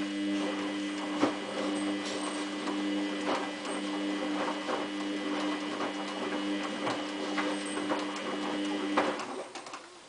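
Samsung WF8804RPA washing machine's drain pump running with a steady hum, water gurgling and clicking through it as the rinse water is pumped out; it starts abruptly and cuts off about nine seconds in.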